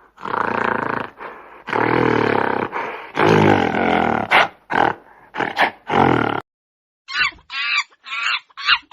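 A large wild animal roaring and growling in several long, loud calls lasting about six seconds, then, after a short pause, five short quick calls near the end.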